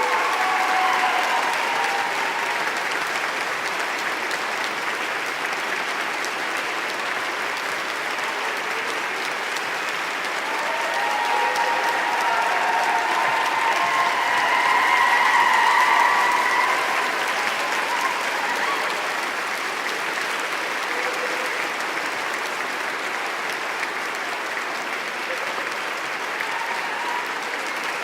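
Audience applauding, many hands clapping in a dense steady patter, with a few voices calling out over it. It swells to its loudest a little past halfway, then settles back.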